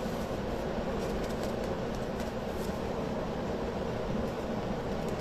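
Steady mechanical hum with a faint low tone in it, and a few faint clicks.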